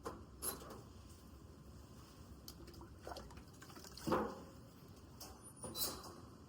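Water being poured into a rabbit's water dish, with a few short clicks and knocks.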